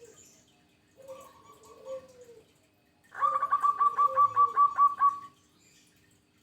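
Zebra dove (perkutut) cooing: a short phrase of low coos about a second in, then about three seconds in a louder run of quick staccato notes, about five a second for two seconds, over further low coos.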